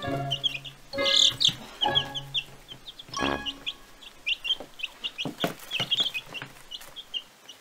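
Chicks peeping: a quick, irregular string of short high chirps, with a few sharp taps in between. Background music is faintly heard in the first couple of seconds.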